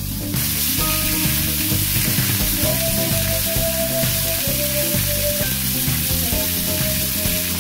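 Pork belly slices sizzling as they fry in an oiled pan, a dense steady hiss that grows louder about half a second in.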